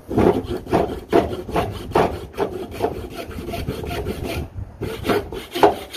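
Lie Nielsen tapered dovetail saw cutting hard ash by hand: rasping push strokes, about two or three a second, with a brief pause a little past four seconds, then two more strokes.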